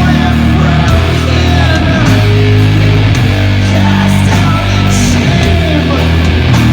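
Doom metal band playing live: distorted guitars and bass hold long, heavy low notes, with sharp hits cutting in every second or so.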